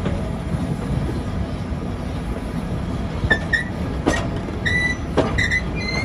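Heritage railway carriage rolling slowly along a station platform, its running gear giving a steady low rumble. From about three seconds in come a series of short high-pitched wheel squeals and two sharp clacks.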